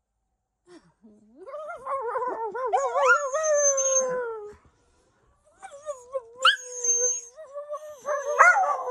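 A dog howling: two long howls with a wobbling pitch and a short pause between them.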